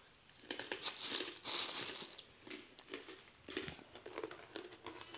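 Plastic bags crinkling as biscuits are taken from a plastic tub: a black bin liner and a clear biscuit packet rustling in irregular bursts, loudest about one to two seconds in.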